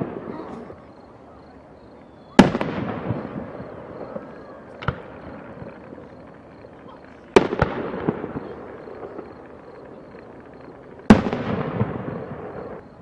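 Aerial fireworks shells bursting: three loud booms several seconds apart, each fading out over a second or two, with a smaller bang between the first two.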